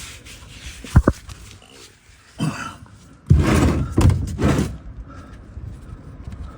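Two sharp knocks about a second in, then a louder stretch of rough handling noise and clatter lasting over a second.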